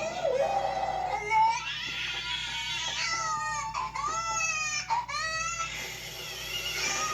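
Cartoon newborn baby crying, a voiced baby cry in a series of wails that rise and fall with short catches of breath between them.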